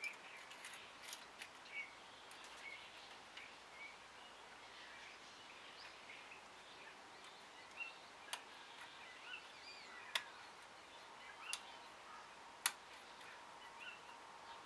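Faint bird chirps in the background, with a few sharp metallic clicks from a radial lock pick working inside a euro lock cylinder in the second half, the loudest about two-thirds of the way through.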